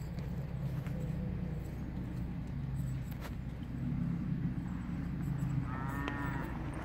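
Cattle lowing in the pens, a steady overlapping drone of low moos, with a shorter, higher call about six seconds in.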